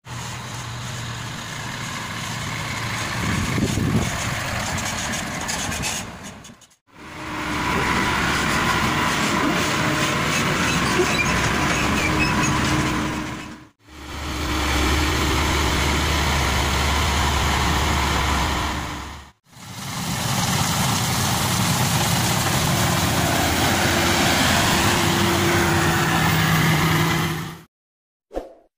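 Diesel engines of a truck and a Maxxi Bimo 102 combine harvester running steadily, as the harvester is unloaded off the truck. The sound is made of four stretches that each break off abruptly.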